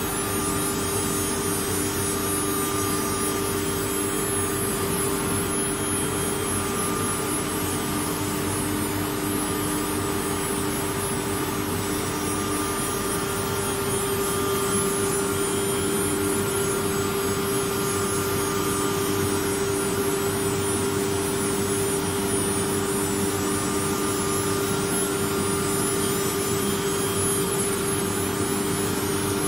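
CNC wood router running, its spindle giving a steady whine over a rushing noise.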